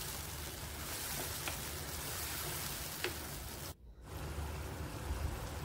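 Onion-tomato masala sizzling in oil in a kadhai, a steady frying hiss as the tomato puree cooks down until the oil separates, with a couple of faint ticks. The sound breaks off for a moment about four seconds in.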